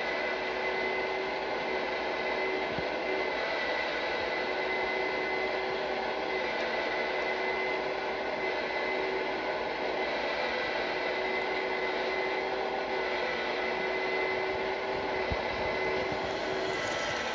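Small electric motor on an O scale two-rail model railroad running with a steady whine and hum; the lower whine drops out near the end.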